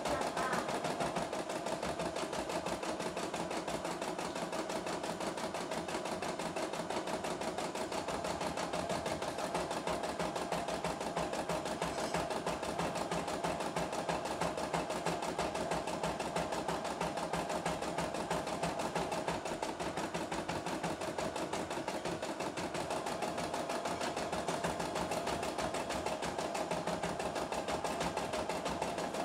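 CNY E960 portable computerized embroidery machine stitching a design, its needle going in a fast, even rhythm.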